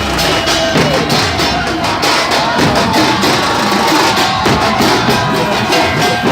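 Loud music with a steady, driving drum beat.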